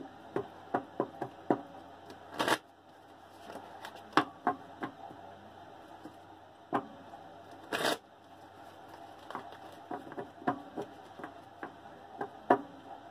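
A deck of tarot cards being shuffled by hand: a run of short soft taps and flicks, with two longer swishes about two and a half seconds and eight seconds in.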